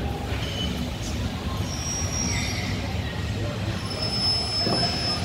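Steady mechanical background noise: a low hum under a thin, high, steady whine that grows stronger about four seconds in.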